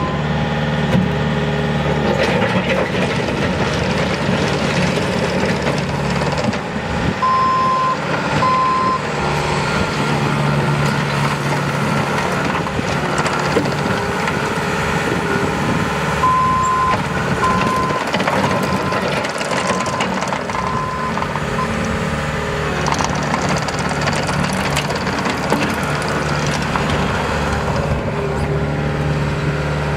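Bobcat T190 track skid steer's diesel engine running, with its backup alarm beeping as it reverses: two beeps about seven seconds in, then a run of about six beeps around sixteen to twenty-one seconds in.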